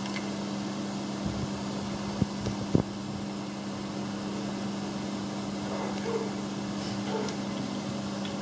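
A steady low machine hum with a fixed pitch, and two short sharp knocks a little after two seconds in and again just before three.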